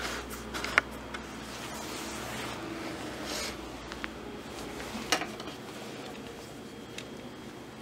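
Handling noises as a person reaches to a desk microscope stand: rustling with two sharp clicks, one about a second in and one about five seconds in.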